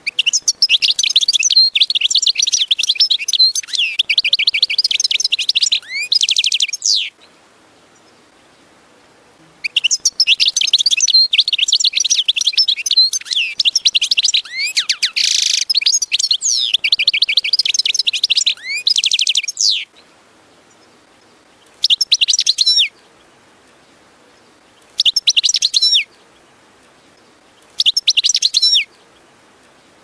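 European goldfinch singing: two long bouts of fast, high twittering and trills, then three short phrases of about a second each, a few seconds apart.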